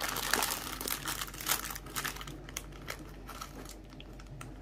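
Shiny plastic snack wrapper crinkling as hands hold the pack open and pull out puffed corn-and-rice cakes. The crackling is dense for the first couple of seconds, then sparser and quieter.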